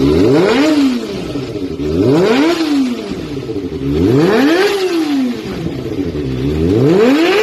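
Kawasaki ZX-25R's 250 cc inline-four, breathing through an Akrapovic carbon slip-on muffler, revved repeatedly with the bike standing: each blip climbs quickly to a high-pitched wail and falls back, about every two seconds, with a fourth rev climbing near the end.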